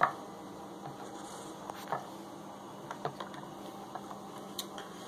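A few small clicks and knocks of plastic as a water-filled airlock is pushed into the rubber grommet of a plastic fermenting bucket's lid, the first the loudest, over a faint steady hum.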